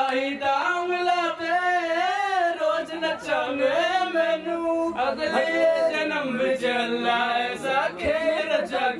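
Men singing together into a handheld microphone, with no instruments, holding and bending long notes.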